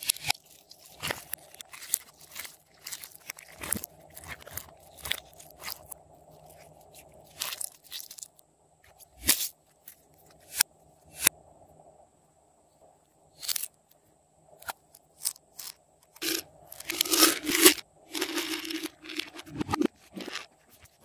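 Slime squeezed and worked by hand, giving rapid sticky crackles and clicks, then scattered clicks and crinkles from plastic slime containers being handled. Two-thirds of the way through there is a louder stretch of crackling and scraping.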